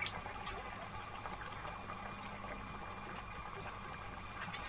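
Pot of spiced water heating on a stove turned up high: a steady hiss of the flame and the warming water, not yet at a full boil, with a sharp click right at the start.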